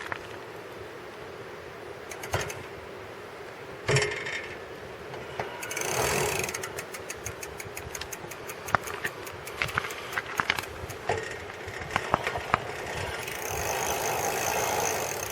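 Custom fat-tire chopper bicycle's chain and 7-speed rear derailleur drivetrain running, with scattered clicks and a stretch of rapid even clicking in the middle. Near the end a thin high squeal comes in, from the brake pads rubbing a little.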